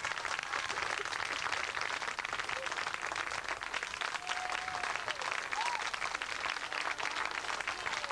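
Audience applauding, dense steady clapping, with a few faint voices over it.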